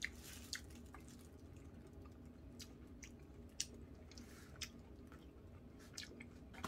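Quiet chewing of boiled cockles and rice, with a handful of short soft clicks spread through it.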